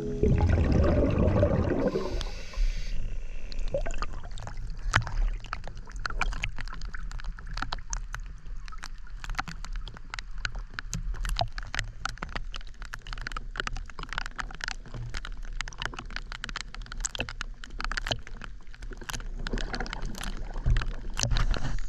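Underwater bubbling and gurgling from a scuba diver's exhaled air, with a dense crackle of clicks. A loud rush of bubbles comes in the first two seconds and another near the end.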